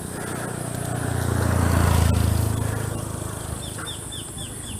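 A small engine passes by, its low hum swelling to loudest about two seconds in and then fading away. Near the end a bird gives a quick series of short falling chirps, over a steady high insect drone.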